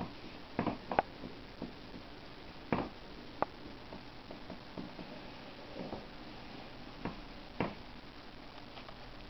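Irregular soft clicks and knocks over a steady hiss, about seven in all, from a handheld camera being moved and handled.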